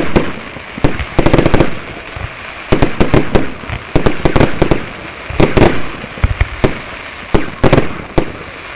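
Fireworks display: aerial shells bursting overhead, a run of sharp bangs and pops coming in quick clusters every second or two.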